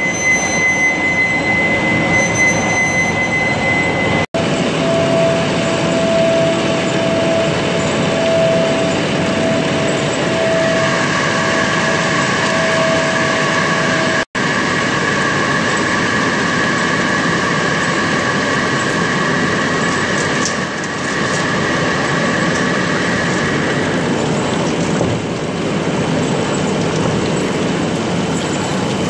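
Large lathe running a trepanning cut through a bar of Inconel 718 under flood coolant, close to breaking through: steady machining noise with a high whine from the cut that shifts in pitch a few times. The sound drops out for an instant twice.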